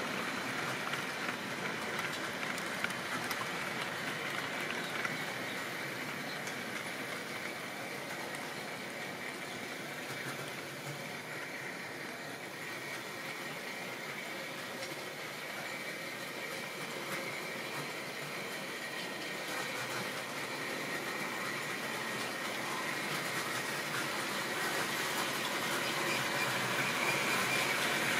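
Model railway goods train running on sectional track: a steady rattling clatter of wagon wheels over the rails and joints, with the small electric motor of the locomotive. It fades a little in the middle as the train runs farther off round the layout and grows louder toward the end as it comes back.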